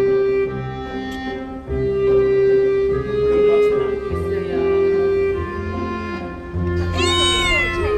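Background music of slow, held notes, with a cat meowing once near the end.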